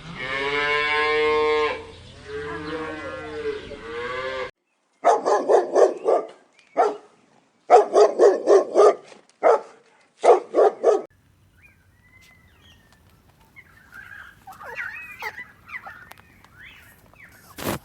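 A cow mooing in two long calls, then a dog barking in four quick runs of barks, followed by faint high chirping.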